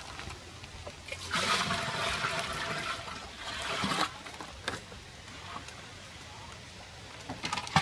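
Liquid pouring from a bucket into a plastic drum, a steady splashing rush for about three seconds that then stops.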